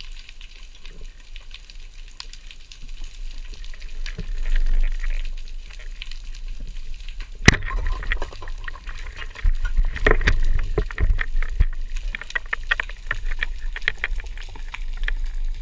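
Underwater sound through a diving camera's housing: a steady low rumble of moving water with scattered crackling clicks, and one sharp loud click about halfway through, after which the clicks come thicker.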